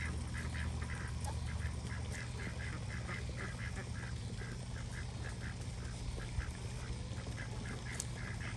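Domestic ducks quacking softly in a steady run of short quacks, about three or four a second, over a low steady rumble.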